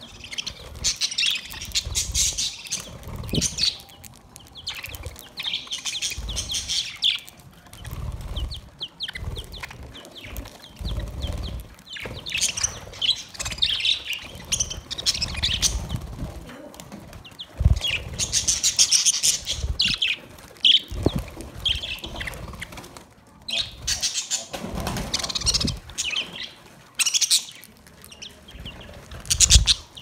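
A flock of budgerigars chattering and chirping in bursts that come and go every second or two, with wing flaps and low thumps among them.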